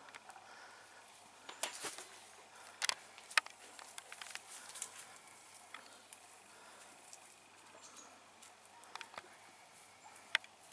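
Quiet outdoor background with scattered short, light clicks and rustles, a few of them sharper around three seconds in.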